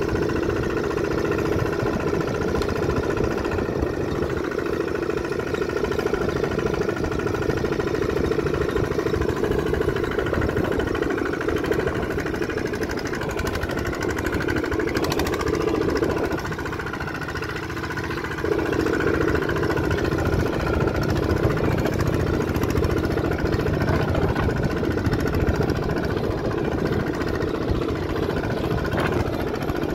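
Kubota walking tractor's single-cylinder diesel engine running steadily, with a brief drop in level for about two seconds, some sixteen seconds in.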